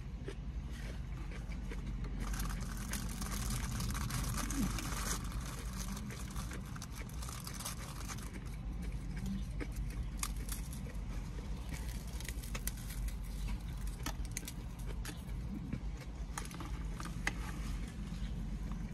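Rustling and crinkling of plastic salad packaging being handled, with scattered light clicks, over a steady low hum. The rustling is densest a couple of seconds in.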